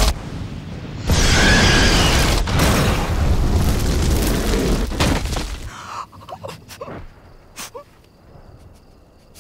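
A fire blast in a house: a loud, noisy rush of flames and booming begins about a second in and runs for about four seconds, then falls away to quiet with a few faint clicks.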